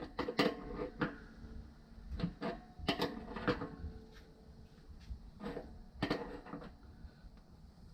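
An adjustable wrench knocking and clicking against a water heater's threaded pipe fitting as the connection is tightened down, in about half a dozen scattered sharp knocks.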